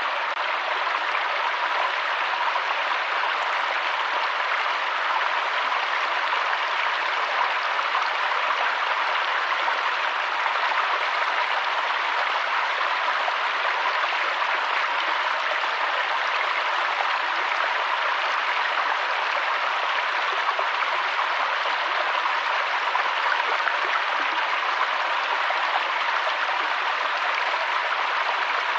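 Waterfall water falling and splashing in a steady, even rush, high and hissy with no low rumble.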